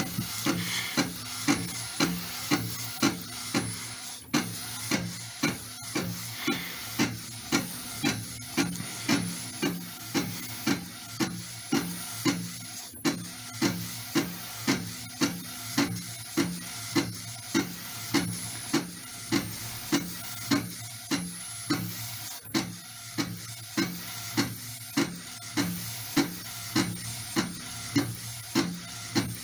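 Inkjet printer mechanism of an Epson 1500W converted to a DIY DTG printer, printing onto a t-shirt. The print-head carriage sweeps back and forth over a steady motor hum, with a regular beat of about three strokes every two seconds.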